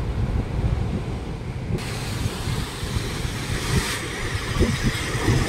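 Wind buffeting the microphone outdoors: an uneven low rumble with gusty spikes and a steady hiss, the hiss stepping up about two seconds in.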